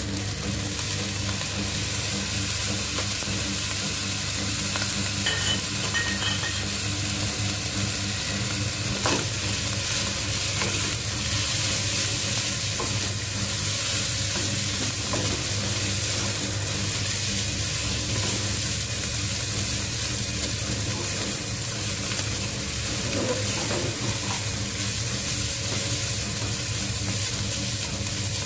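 Fried rice sizzling in a nonstick wok as it is stirred and tossed with a spatula, a steady frying hiss with a low hum underneath.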